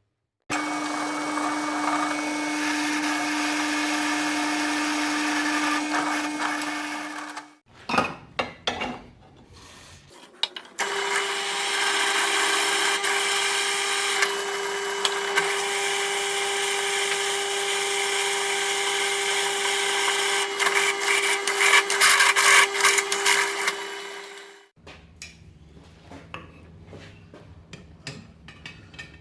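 An electric power tool motor runs steadily for about seven seconds and stops. After a few handling knocks it runs again for about fourteen seconds at a slightly higher pitch, with a rougher, scratchier sound near the end as it works the steel.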